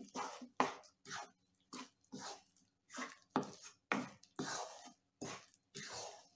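Wooden spatula stirring and scraping coarsely ground moong dal through ghee around a nonstick kadai, about two short scrapes a second, as the dal is roasted on a slow flame.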